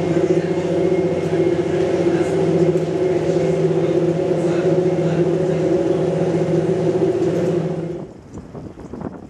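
Interior of a diesel regional train running at speed: a steady, loud engine drone. About a second before the end it cuts off, and gusts of wind on the microphone take over.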